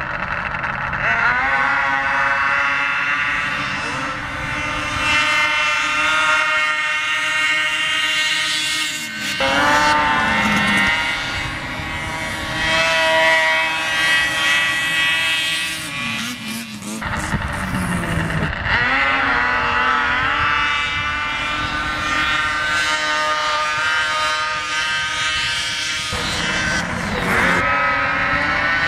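Snowmobile engines revving hard as racing sleds launch up the hill. Each launch is a rising whine that climbs and then holds at a high, steady pitch, and this happens about four times, every eight or nine seconds.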